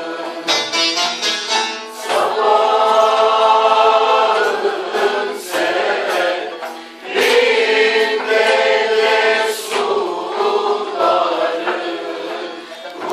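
A group of voices singing a song together, accompanied by strummed bağlamas (long-necked Turkish saz lutes). The held sung lines break off briefly about two seconds in and again around seven seconds.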